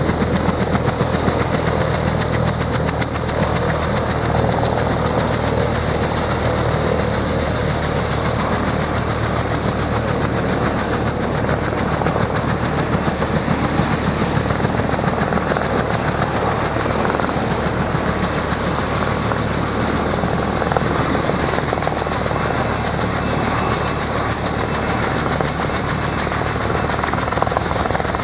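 Helicopter noise: a steady low turbine and rotor hum from the Bell 214B turning on its pad gives way, a few seconds in, to the even rushing rotor and engine noise of a small light helicopter in flight.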